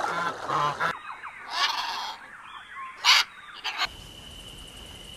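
Swans honking for about the first second; then, after a cut, a macaw's harsh squawks, two loud ones about a second and a half apart, with softer warbling calls between. Near the end the sound changes to a steady high-pitched tone over a faint hiss.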